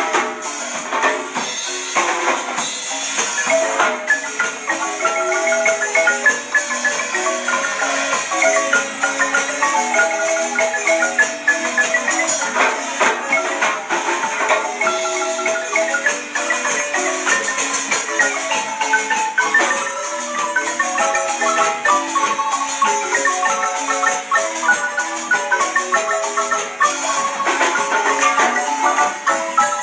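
Guatemalan marimba played by three players at one keyboard: a lively tune of quick mallet notes, some notes held in rolls over a busy accompaniment.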